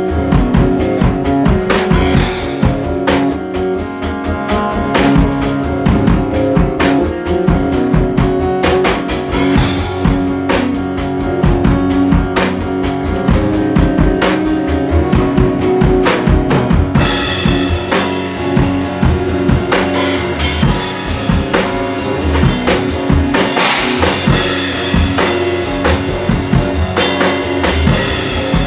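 Instrumental jam of guitar over a drum kit keeping a steady beat, with no singing. The cymbals come in louder a little past halfway.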